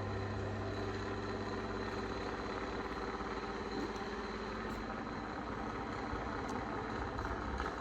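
Steady low hum with a few constant tones running under it, unchanging throughout.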